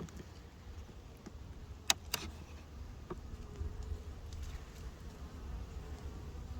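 Honeybees buzzing around an open hive, with two sharp cracks about two seconds in and a smaller one a second later as a hive tool pries a frame loose.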